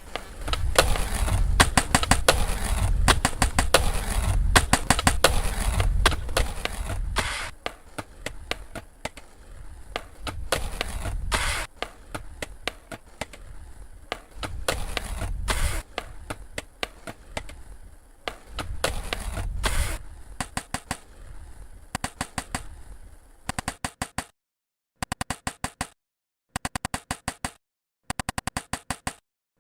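Skateboard wheels rolling on pavement with a steady rumble and many sharp clacks, cut and layered into a rhythmic collage. The rumble swells and fades several times. Near the end it turns into a fast, even stutter of repeated clicks that stops dead and restarts several times.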